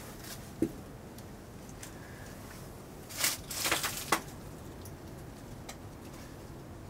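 Quiet background with a single light click about half a second in, then a brief cluster of scuffs and crunches about three seconds in: a person moving about on the debris-littered floor of an abandoned streetcar's cab.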